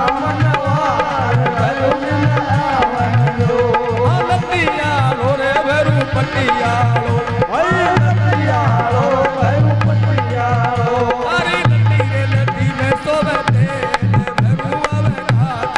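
Rajasthani folk devotional music played live: a harmonium carries the melody over steady dholak drumming, with sharp strikes on a metal plate keeping time.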